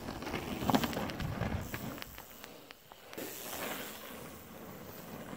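Mountain bike rolling down a gravel and dirt trail: tyres crunching, with scattered knocks and rattles that are loudest about a second in.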